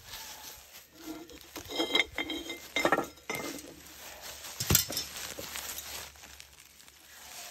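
Metal kiln tongs clinking against a hot, unglazed raku pot as it is set down on a ceramic kiln shelf: a run of ringing clinks, then one sharp knock a little later.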